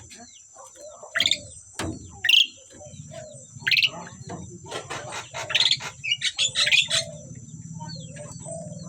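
Asian pied starlings (jalak suren) calling: loud, sharp chirps and whistles in short bursts, busiest between about five and seven seconds in. A steady high-pitched whine and, from about two and a half seconds in, a low hum run underneath.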